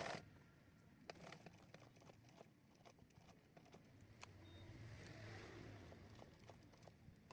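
Near silence: faint room hum with scattered, irregular light clicks.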